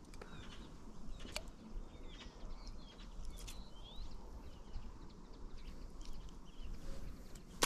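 Songbirds chirping and calling faintly over a low background rumble, with a single click about a second and a half in and a sharp knock right at the end.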